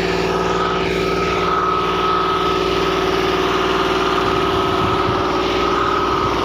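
Tractor engine running at a steady speed, with a steady high whine over the engine note that stops near the end.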